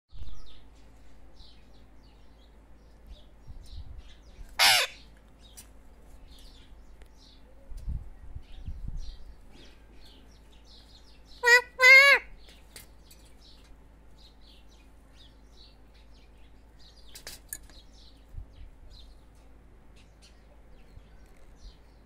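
Pet ringneck parakeet giving one harsh screech about five seconds in, then two quick, loud, shrill calls with a wavering pitch a little past halfway, and a fainter call later. Faint high chirps of small birds sound in between, with a few dull low bumps at the start and around eight seconds.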